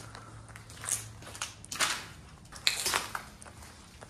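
Footsteps crunching over debris: broken wood, rubble and dead leaves on a littered floor. The crunches come irregularly, the loudest about two and three seconds in.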